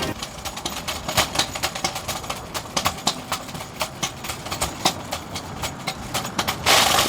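An irregular run of short clicks and knocks, several a second, with a brief burst of hissing noise near the end.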